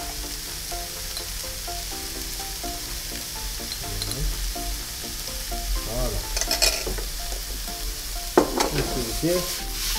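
Diced chicken pieces sizzling steadily in hot oil with onions in a non-stick frying pan. A few louder scrapes and clatters of the pan come in the second half.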